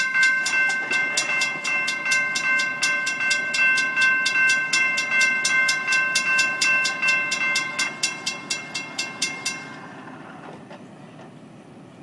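Railroad grade-crossing warning bell ringing in rapid, even strokes, several a second, warning that a train is coming. It stops abruptly about ten seconds in.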